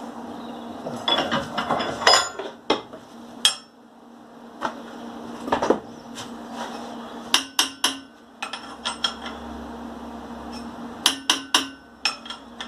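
Hammer tapping on a tacked steel forge-burner flare and pipe to level it up, in irregular clusters of sharp metallic strikes, some in quick threes, over a steady low hum.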